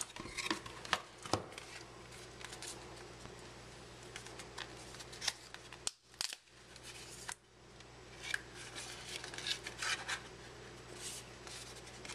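Cardboard trading-card box being opened by hand: the card sleeve is slid out and its paper flaps folded back, with scattered light rustles, scrapes and clicks. The sound drops out briefly about six seconds in.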